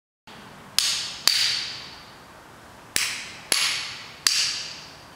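Five sharp hammer blows in two groups, each ringing out briefly before dying away.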